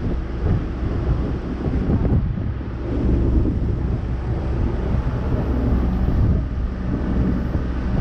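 Passenger boat under way: its engine runs with a steady low drone, water rushes and splashes along the hull, and wind buffets the microphone.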